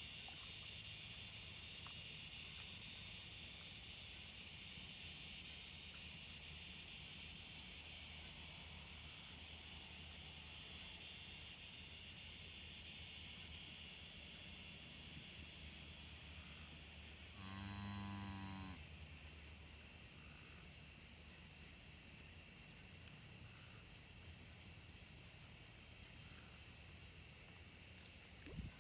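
Steady chorus of crickets and other insects, a fast pulsing trill high in pitch. About halfway through, a single low call lasting about a second.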